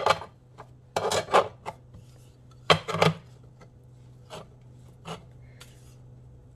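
Hands and a wooden rolling pin pressing and squaring scone dough on a cast iron pan: three short scraping, rubbing strokes in the first three seconds, then a few fainter ones, over a low steady hum.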